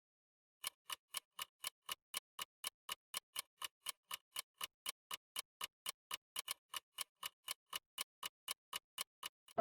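Steady, even ticking, about four ticks a second, starting about a second in and stopping near the end.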